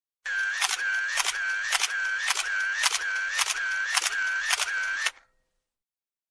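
Camera shutter sound effect firing repeatedly, about two clicks a second for around five seconds, with a whirring tone between the clicks, then stopping abruptly.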